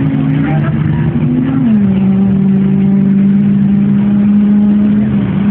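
Racing vehicle's engine running at high, steady revs. The pitch eases down once, a little under two seconds in, then holds steady.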